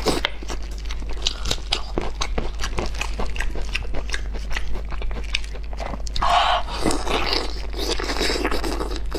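Close-miked chewing and biting of braised lamb ribs: a run of wet mouth smacks and clicks, with the meat being pulled apart from the bones by hand.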